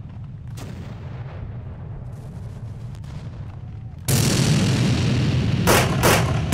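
Battle sound effects: a low rumble with a faint cannon shot under a second in, then about four seconds in a sudden loud explosion that carries on as a roar, with two sharper blasts near the end.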